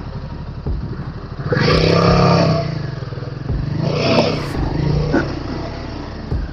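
Royal Enfield Himalayan 450's single-cylinder engine pulling at low speed up a wet, rutted dirt trail. It has two surges of throttle, a longer one about one and a half seconds in and a shorter one around four seconds, with clatter from the bike over the rough ground.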